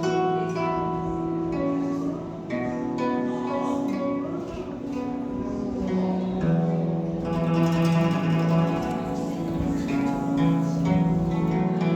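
26-string guzheng played as a solo melody: plucked notes ringing on over one another, with some notes wavering and bending in pitch as the strings are pressed.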